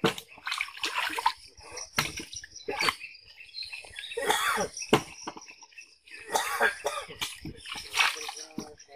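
Pond water splashing and sloshing in short, irregular bursts as live fish thrash in a seine net and are picked out into a plastic drum.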